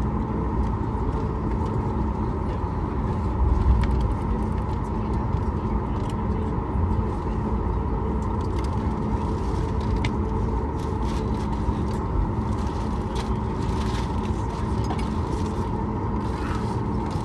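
Boeing 737 MAX 8 cabin on the ground after landing: a steady drone of the engines and cabin air with low rumble from the wheels, a short louder rumble about three and a half seconds in, and light rattles and clicks later on.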